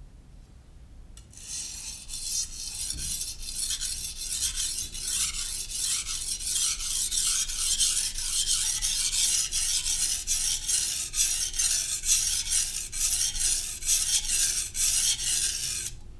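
A steel knife blade stroked rapidly back and forth on a Naniwa Professional 600-grit whetstone, scraping at about three strokes a second. It starts about a second in and stops just before the end.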